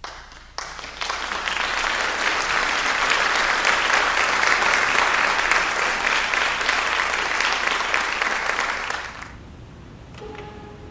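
Concert audience applauding, a dense clapping that starts about half a second in and dies away about nine seconds in. Near the end a single held instrumental note sounds.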